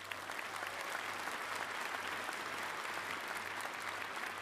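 Audience applauding. The clapping swells up at the start and then holds steady.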